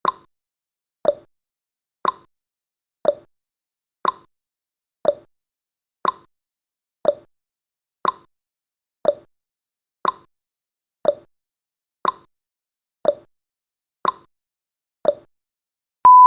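Clock tick-tock sound effect, one sharp tick a second, alternating higher and lower in pitch, counting down the last seconds of a timer. Near the end the ticking stops and a steady beep starts as the countdown reaches zero.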